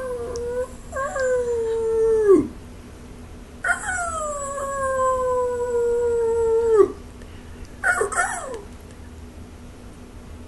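Belgian Malinois puppy howling at its owner: two long, drawn-out howls that slowly slide down in pitch, then a short falling call later on.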